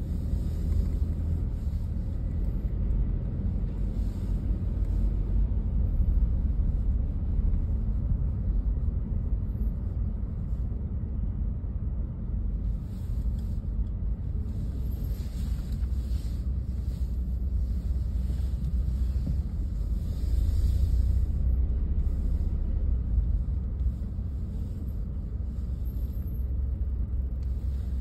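Low, steady rumble of a car's engine and tyres, heard from inside the cabin as it drives.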